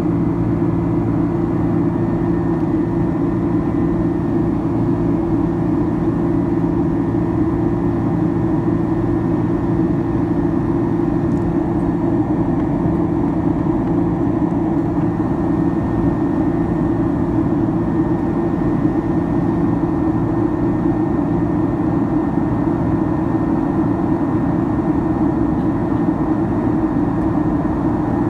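Cabin noise of a Boeing 767-300ER in flight, heard inside at a window seat by the wing: the jet engines' steady low drone mixed with the rush of air past the fuselage, with a few faint steady tones above it.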